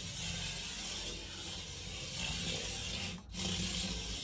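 Turbo Racing C73 1/76-scale micro RC car driving on a slippery tabletop track: a faint, even hiss from its tiny motor, gears and tyres rubbing on the surface, briefly cutting out a little past three seconds.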